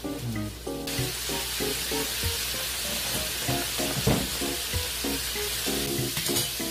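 Sliced mushrooms and green chillies sizzling as they fry in a frying pan, the hiss starting abruptly about a second in, with a spatula stirring through them. Background music plays over it.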